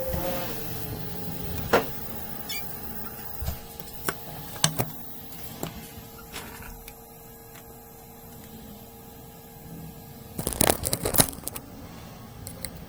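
Small metal tools clicking and tapping on a PS5 circuit board during HDMI port soldering work, over a steady electrical whine from bench equipment. The whine stops about ten seconds in, and a quick run of clattering taps follows.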